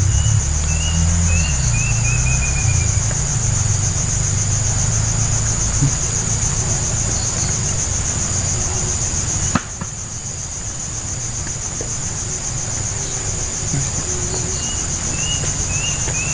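Insects chirring without a break in a high, rapidly pulsing drone. A bird gives a short run of falling chirps near the start and again near the end, and a sharp click comes about halfway through.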